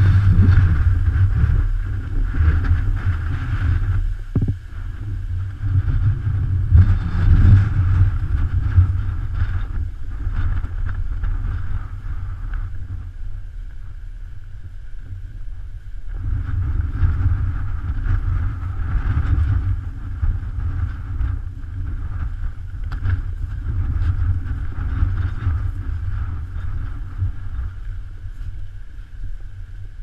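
Strong typhoon wind buffeting the camera's microphone: a deep rumble that rises and falls with the gusts, easing off in the middle and picking up again later.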